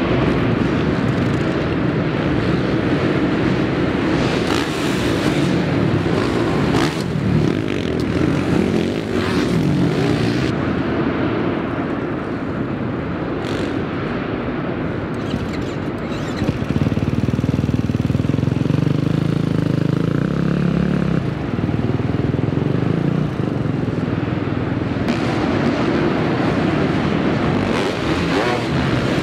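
Four-stroke motocross bikes revving and running around a supercross track, engines rising and falling as riders accelerate and jump. For several seconds in the middle the engine sound is softer and duller.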